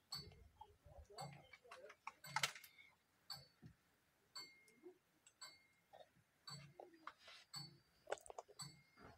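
Faint, scattered ticks and taps, with one louder knock about two and a half seconds in.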